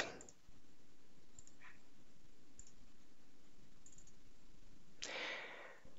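A few faint computer mouse clicks over a low steady hiss, with a short soft rush of noise near the end.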